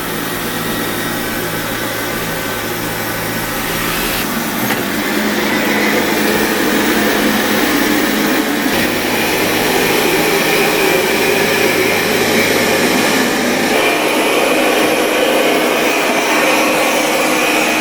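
Qihoo 360 S9 Max robot vacuum's suction fan running with a steady whir, growing louder in steps about 4, 9 and 14 seconds in as it is switched up through its suction settings, from low-noise to max.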